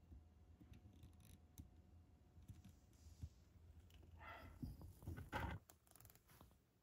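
A cat rubbing its fur against the microphone: scratchy brushing and clicking about four seconds in, lasting under two seconds, after a near-silent start.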